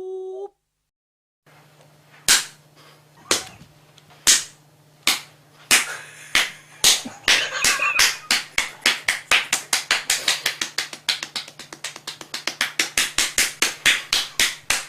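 Belly drumming: a bare belly slapped by hand like a drum. The slaps start about a second apart and speed up into a rapid run, over a low steady hum.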